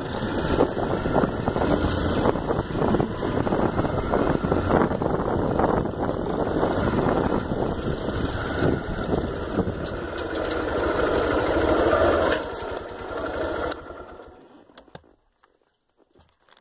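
Motorcycle engine running as the bike rides along a dirt trail. After about twelve seconds it eases off, and the sound fades out near the end.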